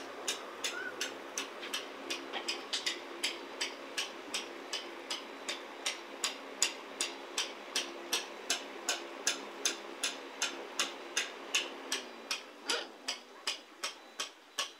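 Rapid, evenly spaced ticking, about three sharp clicks a second, over a low steady hum that fades out near the end.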